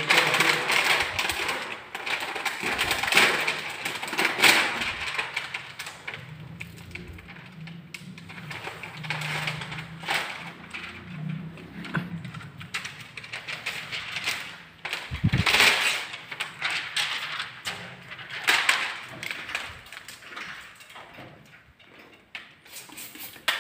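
Plastic window tint film crinkling and rustling as it is handled and pressed onto wet glass, in irregular bursts, loudest in the first few seconds and again about two-thirds of the way in.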